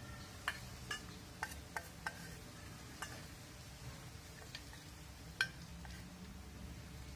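Metal spoon clinking against a stainless steel bowl while eating: about eight light, unevenly spaced clinks, the loudest about five and a half seconds in.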